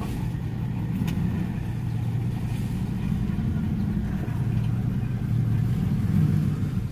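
Vehicle engine running, heard from inside the cab as a steady low hum.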